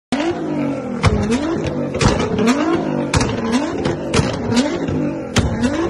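Nissan GT-R's twin-turbo V6 revved over and over, about once a second, with sharp exhaust pops and bangs as it backfires flames from the exhaust.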